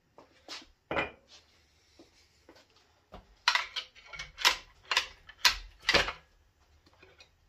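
Sharp metal clanks and knocks, about two a second for a few seconds in the middle, with a couple of lighter knocks before them, as a main bearing cap is worked loose from a 5.3 L LM7 V8 block.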